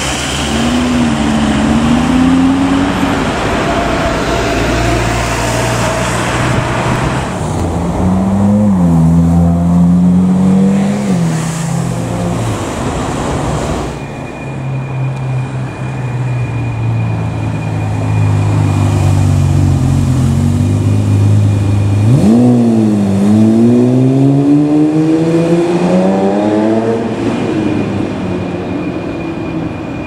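Car engines revving in city traffic, followed by a Ferrari Testarossa's flat-12 running low, then a sharp blip of the throttle and revs climbing steadily for several seconds as it accelerates away.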